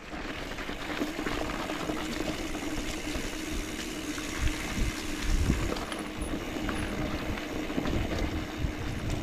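Mountain bike rolling along a dirt and rock trail: a steady rush of tyre and riding noise with a faint steady hum, and a few low thumps about four and a half to five and a half seconds in.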